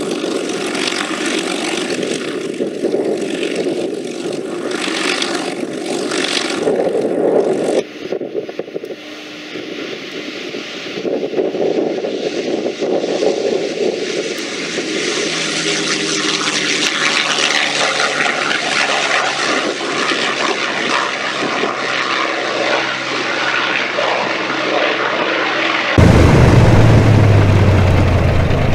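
P-51 Mustang's Packard Merlin V-12 engine running loudly as the plane runs on the ground and, after an abrupt cut about eight seconds in, flies past at climb power. Near the end an abrupt cut brings in another Mustang's Merlin idling with a deep, heavy rumble.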